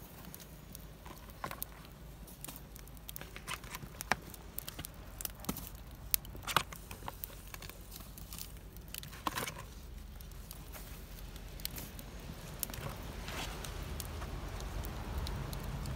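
Wood fire crackling, with scattered sharp pops and ticks at irregular intervals over a low steady rumble that grows louder toward the end.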